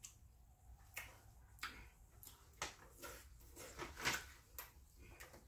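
Faint mukbang eating sounds: soft, irregular wet clicks and smacks from chewing and from fingers picking through a seafood boil, with a slightly louder click about four seconds in.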